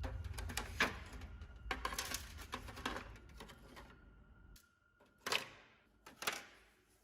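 Small plastic parts of a model car being handled: a run of light clicks and taps, then two sharp single knocks with a short ring, about a second apart near the end.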